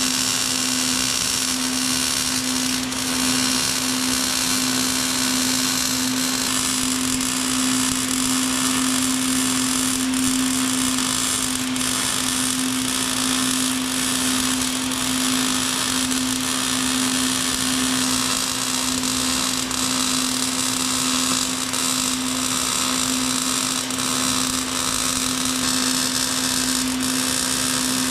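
A power tool motor running steadily without a break, a constant hum under a strong high hiss.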